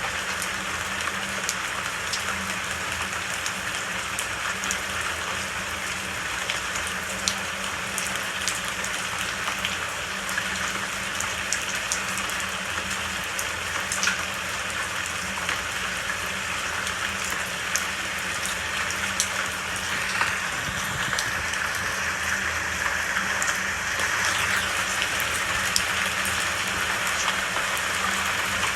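Steady rainfall: a dense even hiss of rain with scattered individual drops ticking sharply, and a faint low hum underneath.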